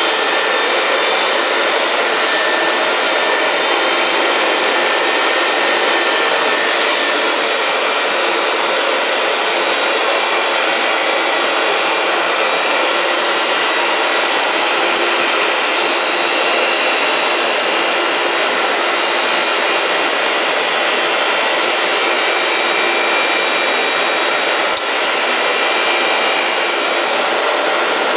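A Bavelloni CR 1111 glass edging machine running: its grinding spindles give a loud, steady whirring hiss with faint steady tones in it, and a single sharp click sounds near the end.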